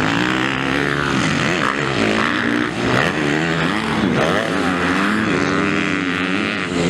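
MX2-class motocross bikes racing, their engines revving up and down over and over, the pitch rising and falling with the throttle through jumps and a corner.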